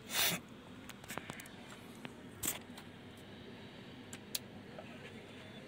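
Faint clicks and light scraping of tweezers and fingers working on a DVD loader's plastic tray mechanism, with a short rustle at the start and another about two and a half seconds in.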